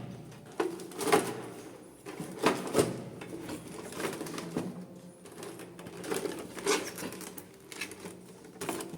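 Hands handling the toy's packaging: a string of sharp clicks and knocks over a steady low hum.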